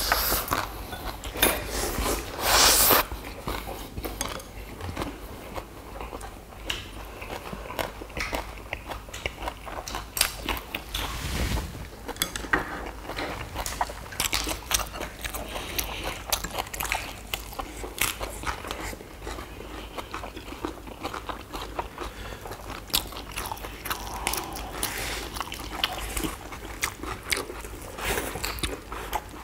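People chewing and biting into ssam, fresh lettuce and perilla-leaf wraps filled with duck bulgogi and rice. It is a run of many short crisp crunches and wet chewing, loudest about two and a half seconds in.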